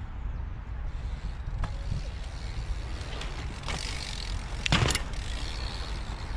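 Stunt bike's tyres rolling on concrete and its parts rattling as the rider spins the frame round in a foot jam whip, with one sharp clatter about three-quarters of the way through as the bike comes back down. A low rumble runs underneath.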